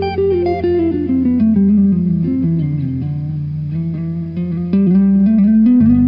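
Background music with plucked guitar: a run of notes falling in pitch, then climbing again, over a steady bass note that changes near the end.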